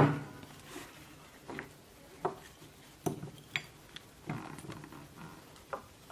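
Cosmetic bottles and jars knocking and clinking against each other and the wooden dressing-table top as a baby monkey paws at them and tips them over: a handful of scattered light knocks.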